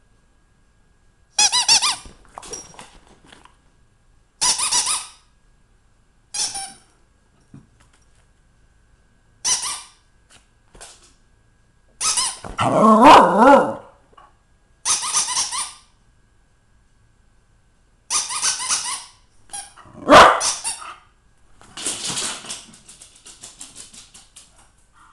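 Dogs' squeaky toy squeaking in short bursts every few seconds as the dogs bite down on it, about nine squeaks in all. There are two louder, lower bursts around the middle and about two-thirds through.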